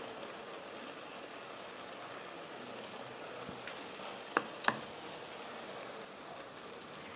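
Chicken pieces frying gently in oil with onions in a pan: a steady soft sizzle, with a few light clicks about halfway through.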